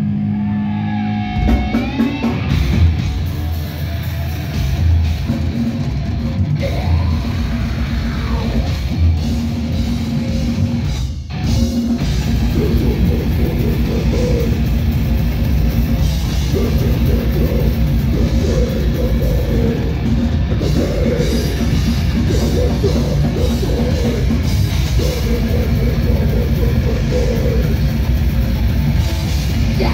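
A live heavy metal band playing loud: distorted electric guitars over a pounding drum kit. The music drops out briefly about eleven seconds in, then the full band comes back in and keeps going steadily.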